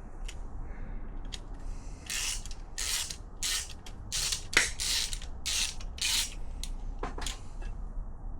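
Hand socket ratchet being worked back and forth to undo a freed engine bolt: a run of about nine short rasping ratchet strokes, roughly two a second, with a few separate clicks before and after.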